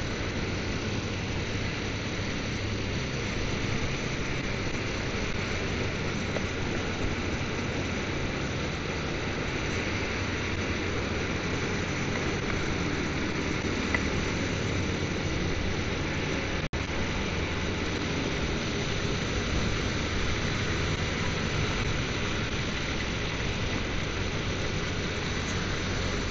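Motorcycle on the move: a steady rush of wind and road noise with the engine running underneath, broken by a split-second dropout about 17 seconds in.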